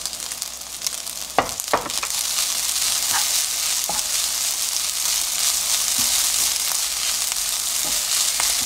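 Kimchi fried rice sizzling in a nonstick frying pan on a gas flame while a wooden spatula stirs and scrapes it. The sizzle grows louder about two seconds in as the stirring starts, with a few sharp knocks in the first few seconds.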